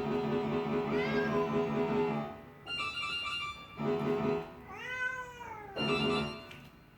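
Bursts of quickly repeated keyboard chords that stop and start, with a cat meowing over them, briefly about a second in and with one longer meow about five seconds in.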